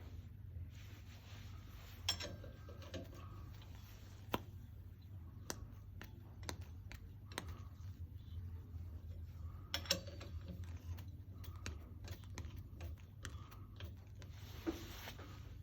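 Scattered light clicks and taps of small parts and hand tools being handled during work on a car AC compressor, with sharper knocks about two, four and ten seconds in, over a steady low hum.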